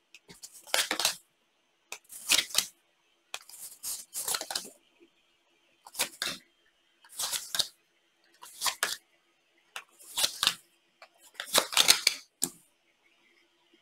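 Altenburger Skat playing cards drawn one at a time off the deck and laid down on a wooden tabletop. Each card makes a short papery sound, about one every second or so, around nine in all.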